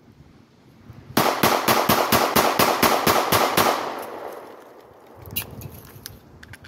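Rapid string of about eleven 9mm pistol shots, about four a second, from a Smith & Wesson Shield subcompact with an Apex trigger kit. The echo fades out after the last shot.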